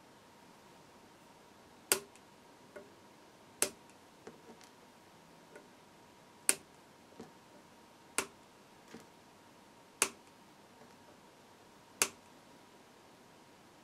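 A series of about six sharp clicks, roughly every two seconds, with fainter ticks between them, as a finger presses and flicks the bent metal leads of a component on a computer power supply's circuit board. A faint steady whine sits underneath.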